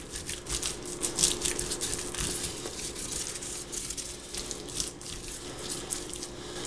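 Mustard being squeezed onto raw pork ribs and smeared over the meat by hand as a binder: irregular wet squishing and smearing strokes.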